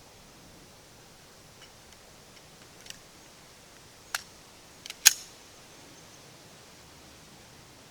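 Quiet pause with a few faint sharp clicks, then a louder short crack about five seconds in.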